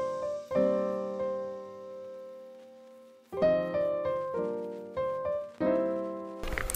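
Background piano music: gentle chords, each struck and left to fade, with one chord held long before a short gap about three seconds in. Near the end the music cuts off abruptly and a crackly crunching noise starts.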